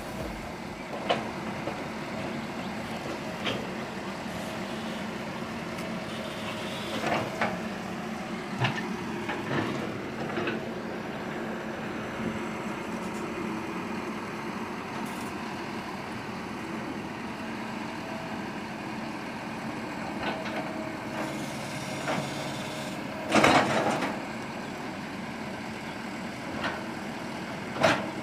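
Excavator diesel engine running steadily, with scattered knocks and clanks and a louder burst of noise about twenty-three seconds in.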